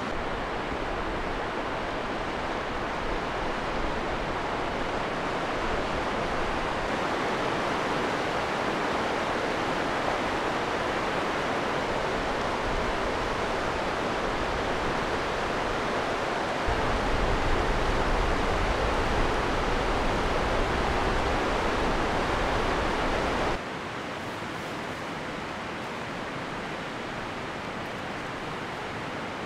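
River rapids rushing steadily, with a low rumble joining in for several seconds in the second half. Near the end it cuts to a quieter, steady hiss.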